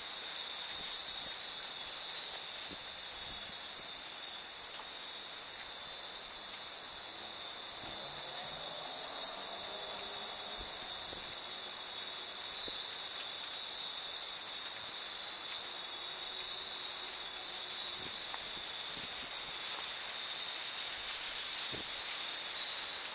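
A steady, high-pitched chorus of insects droning in the trees.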